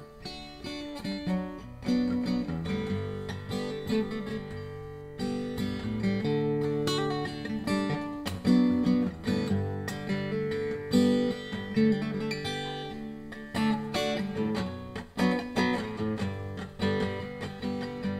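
Acoustic guitar strumming chords in the instrumental introduction of a song, before the vocals come in.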